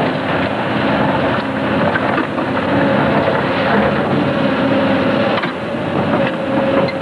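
Case CX210 tracked hydraulic excavator's diesel engine running steadily under load, with a held whine and scattered knocks and clatter of stone rubble as the bucket works through the demolished masonry.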